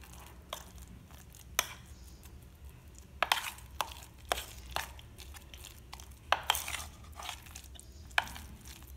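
Steel spoon stirring a thick, wet paste of ground chana dal and jaggery syrup in a stainless steel bowl, clinking and scraping against the bowl at irregular intervals.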